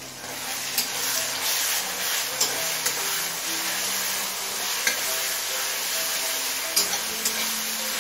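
Ginger and garlic paste sizzling in hot mustard oil with fried onions and tomatoes in a metal kadai, growing louder just after the start as it is stirred in. A metal spatula clicks against the pan several times.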